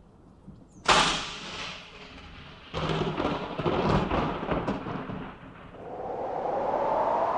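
A sudden loud crash that dies away, then a rumbling, crackling stretch of a few seconds, then a siren starting up and rising steadily in pitch.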